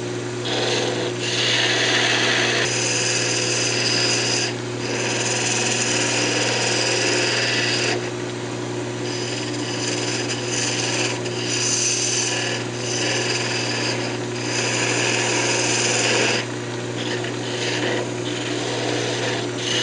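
Gouge cutting a spinning cocobolo blank on a wood lathe: a hissing scrape of wood being shaved that comes in stretches of a few seconds and eases off briefly several times as the tool is lifted and set back in, over a steady low hum.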